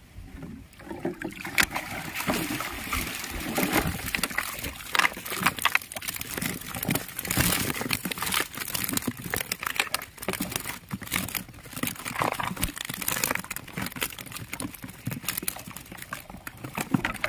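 Small live fish flapping in a wet mesh net bag held at the pond's edge, with water sloshing and dripping: a dense, irregular crackle of splashes that starts about a second in.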